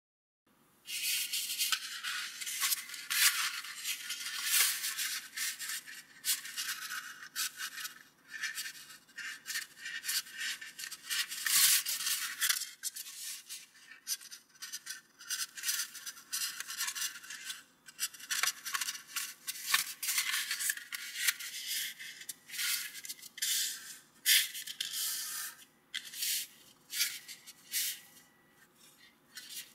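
A sheet of origami paper rustling and crinkling as hands fold it in half into a triangle and run along the crease, in quick, irregular scraping strokes that start about a second in.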